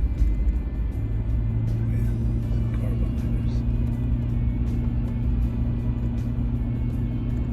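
Cabin noise of a car driving at steady speed: a low engine and road drone with a steady hum.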